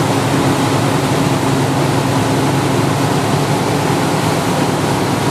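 Motorboat running at speed: a steady low engine hum under the loud, even rush of the churning wake.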